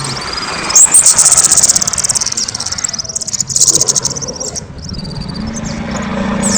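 Kemade songbird singing loud, with two fast trills of high rapid notes: the first about two and a half seconds long, the second shorter, each after a short rising note. A steady low hum comes in near the end.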